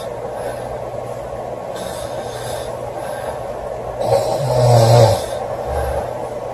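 A girl snoring in her sleep: a quiet airy breath about two seconds in, then one loud rasping snore about four seconds in that lasts about a second.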